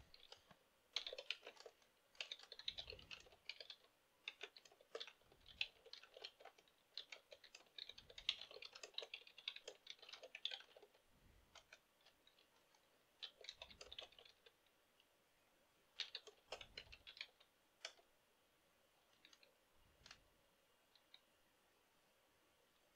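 Computer keyboard typing, faint: several bursts of quick keystrokes with short pauses between them.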